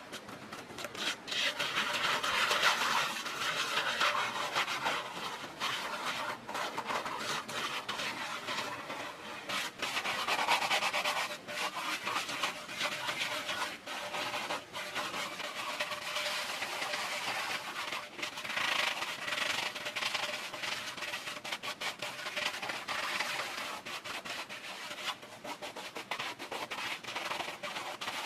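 Continuous rubbing and scraping on a rough surface, broken by many small clicks and knocks, with louder stretches a few seconds in, around the middle and again later on.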